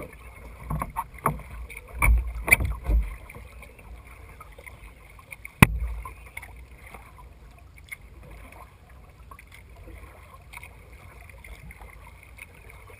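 Kayak paddling on calm water: paddle strokes with splashes and low knocks through the plastic hull in the first three seconds, one sharp knock about five and a half seconds in, then a low steady water and hull noise.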